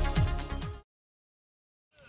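Electronic background music with a steady beat, fading and cutting off under a second in, followed by complete silence.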